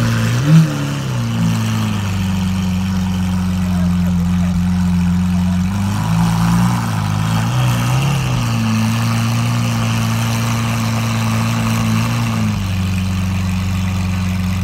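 Lamborghini Aventador SVJ's naturally aspirated V12 idling steadily. It gives one short, loud blip of revs about half a second in and a couple of small rises in pitch between about six and eight seconds.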